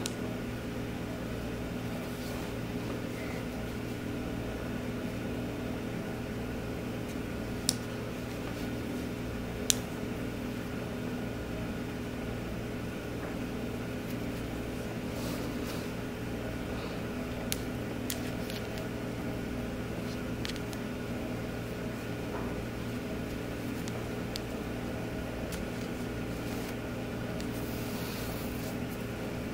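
Steady mechanical hum of several fixed tones, with two short clicks about eight and ten seconds in.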